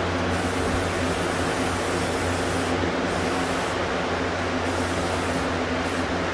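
Aerosol spray-paint can hissing in several bursts, the first the longest, over the steady hum of a 3-speed box fan running on its top setting to pull the overspray through the booth's filter.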